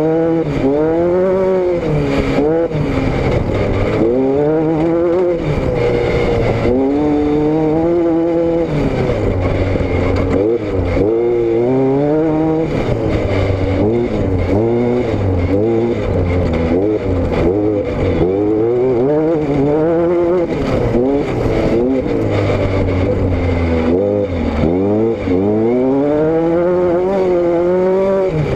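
Car engine and exhaust under way, the revs climbing and falling again and again every second or two over a steady low drone.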